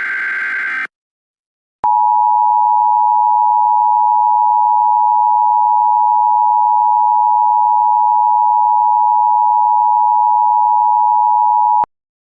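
The last burst of an Emergency Alert System SAME header, a short screeching data warble. After a brief pause comes the EAS two-tone attention signal, a steady dual tone near 1 kHz that holds for about ten seconds and cuts off abruptly.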